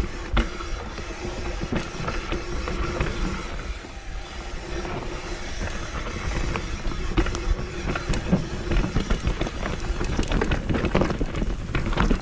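Mountain bike riding fast down a rocky, rooty dirt trail: tyres rolling and crunching over dirt and stones, with frequent knocks and rattles from the bike as it hits bumps, over a steady hum.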